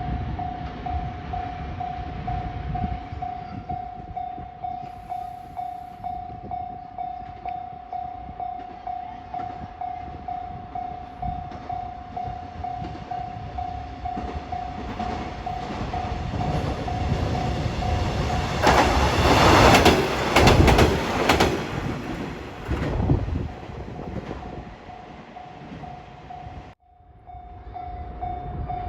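A level-crossing warning bell rings steadily in even, repeating strokes. About two-thirds of the way in, a short two-car KiHa 120 diesel railcar set passes close by for a few seconds, its wheels clacking over the rail joints. The sound cuts out abruptly near the end, and the crossing bell then resumes.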